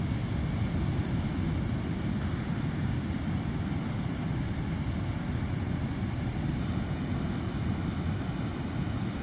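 Sea surf heard as a steady low rumble, without distinct breaking waves, mixed with wind on the microphone.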